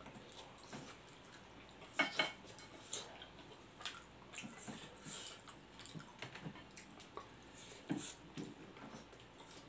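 Chopsticks clicking and scraping against a glass plate as noodles are picked up. The clicks are light and scattered, with the loudest about two seconds in and another pair near the end.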